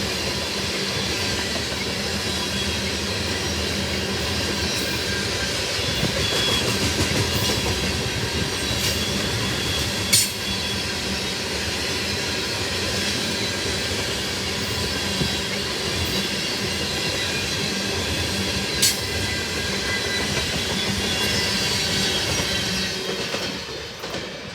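Long freight train of tank cars rolling past: steady wheel-and-rail noise with clickety-clack over the rail joints and a faint wheel squeal. Two sharp clanks come about ten and nineteen seconds in. The noise drops away in the last second or so as the end of the train passes.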